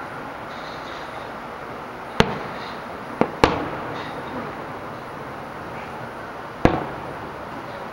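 Aerial firework shells bursting: four sharp bangs, one about two seconds in, a quick pair about a second later, and one near the end, each with a short decaying tail, over a steady background hiss.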